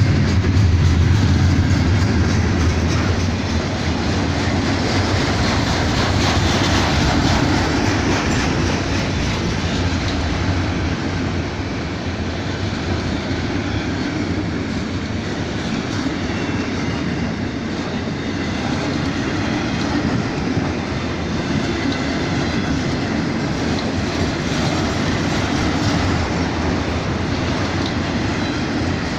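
Freight train rolling past, its wheels clattering steadily over the rails, with a deeper rumble strongest in the first few seconds.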